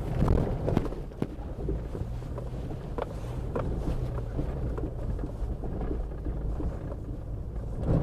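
A car driving over rough unpaved ground, heard from inside the cabin: a steady low engine and tyre rumble with occasional short knocks as the suspension takes the bumps. There is no clanking or rattling from the chassis, the sign of a tight, well-sorted suspension.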